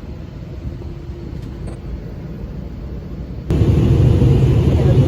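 Steady low rumble of a moving vehicle heard from inside. About three and a half seconds in, it cuts abruptly to a louder, fuller rumble.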